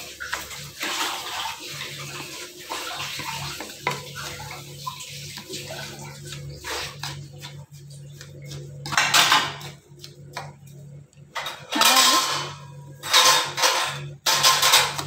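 Wooden spatula stirring and scraping a wet mixture of grated ash gourd and sugar around a non-stick kadai, over a steady wet hiss from the pan. In the second half come several loud, separate scraping strokes.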